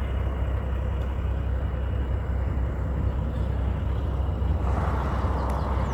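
Road traffic running by under a steady low rumble, with one vehicle passing louder near the end.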